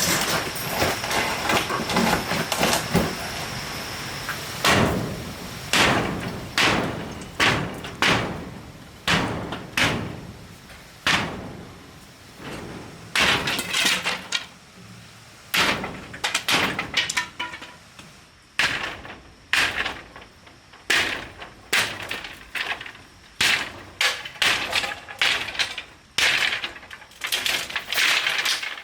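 Repeated hard, sharp knocks, roughly one a second, each with a short ringing tail, as of a tool striking something hard. Over the first few seconds there is a steady hiss beneath them.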